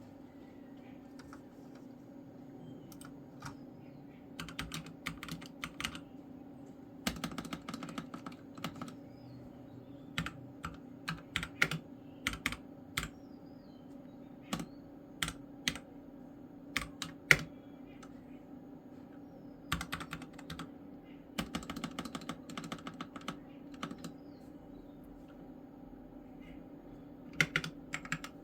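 Keys of an EvoFox mechanical gaming keyboard clacking as they are pressed, in quick runs of strokes and single presses with short pauses between, over a steady low hum.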